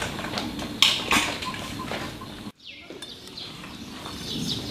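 Hard sugar clicking and scraping against a sugar painter's slab, with two sharp clicks about a second in. The sound breaks off abruptly partway through and returns quieter.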